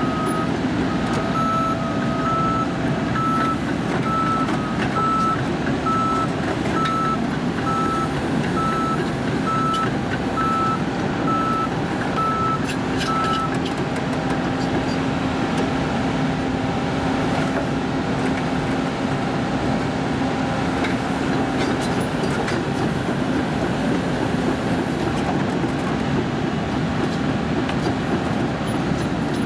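John Deere 710L backhoe loader running with a steady diesel engine noise. A reversing alarm beeps evenly, a little more than once a second, and stops about halfway through.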